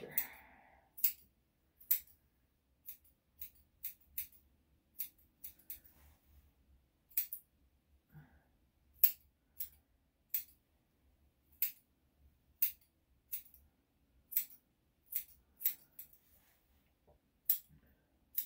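Grooming scissors snipping through a Yorkshire Terrier's hair: short, sharp snips at an uneven pace, about one or two a second.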